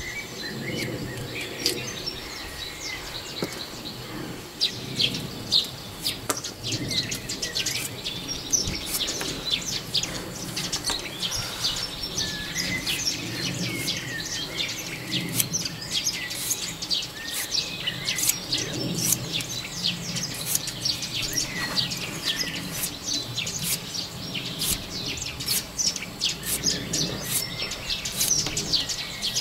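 Birds chirping and singing, with many short sharp clicks from a knife slicing chilli and fresh ginger, the slices dropping into a stone mortar.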